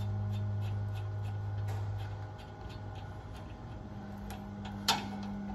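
Light, evenly spaced ticking about three times a second over a steady low hum, with one sharper metallic click near the end as the driveshaft's U-joint cap hardware is worked loose by hand.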